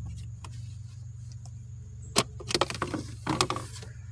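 Plastic clips snapping and rattling as the tabs of a 2014 Honda CR-V's cabin air filter housing cover are squeezed and the cover is unclipped and pulled away. One sharp snap about two seconds in, then a quick cluster of clicks and scraping over the next second and a half, over a steady low hum.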